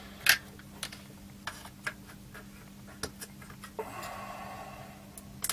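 Small clicks and taps of a ROM chip being worked out of its socket on a Commodore Plus/4 circuit board, with a short scraping sound about four seconds in. A faint steady hum runs underneath.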